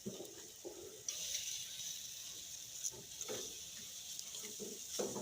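Beef steaks sizzling on a gas grill: a steady high hiss that sets in suddenly about a second in, with a few faint clicks.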